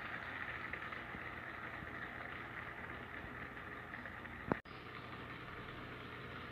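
Steady trickling of water in a small landscaped tub pond, an even hiss of running water. A sharp click and a brief dropout come about four and a half seconds in.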